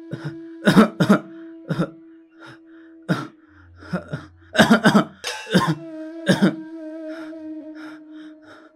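A sick man coughing hard in repeated short fits, which stop about two-thirds of the way through. Under the coughs runs a steady droning film score with a soft, even pulse.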